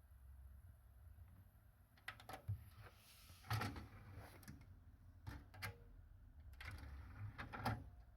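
Yamaha CDX-393 MkII CD player being handled, giving a string of faint mechanical clicks and clunks. They start about two seconds in, some come in quick pairs, and they end near the finish.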